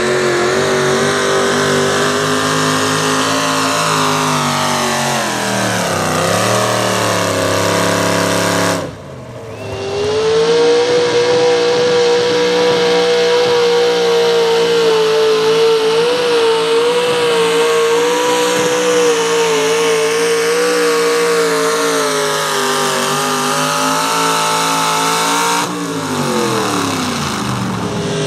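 V8 engine of a hot rod pulling tractor running at full throttle while dragging a weight sled, its pitch sagging under the load about six seconds in. After a short break near nine seconds it holds a steady high pitch, then winds down with a falling pitch near the end.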